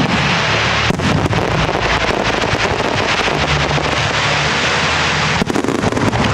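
Fireworks display: a dense, continuous crackle of many shells and crackling stars going off at once, with a few sharper bangs, about a second in and again near the end.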